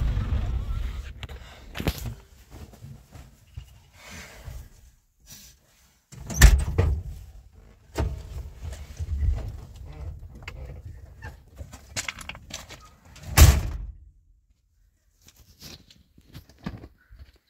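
A vehicle's running rumble stops about a second in, followed by scattered knocks and thumps with handling and rustling noises; three louder thumps stand out.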